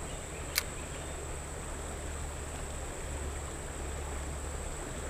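Steady rush of water flowing over rocks, with a single short click about half a second in.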